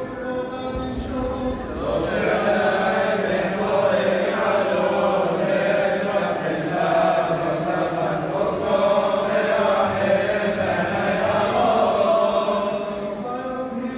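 Male deacons' choir chanting a Syriac Orthodox liturgical hymn together, with long held notes, louder from about two seconds in.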